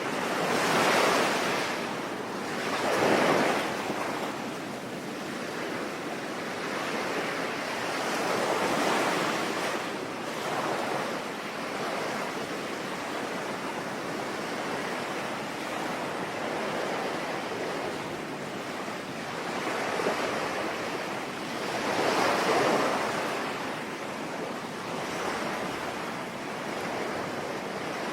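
Sea waves surging and washing in, louder swells coming every few seconds, over a steady hiss of rain.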